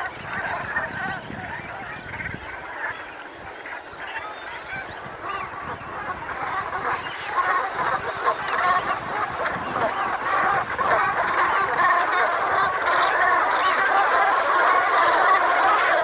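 A flock of brent geese calling, many short calls overlapping in a continuous chatter that grows louder and denser about halfway through.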